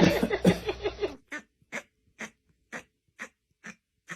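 An animal's short, evenly spaced breaths or huffs, about two a second, starting about a second in after a cut.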